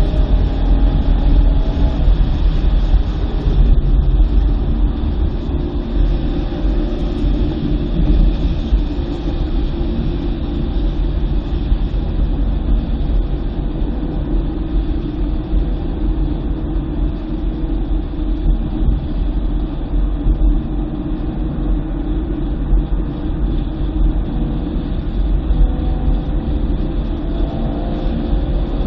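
In-car sound of a 2009 BMW M3's V8 at a steady, even pace, heard mostly as a deep, constant rumble of engine and road noise, with the engine note shifting in pitch only near the very start and end.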